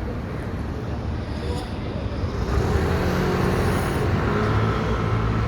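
Steady vehicle rumble with a low hum, growing louder about two and a half seconds in.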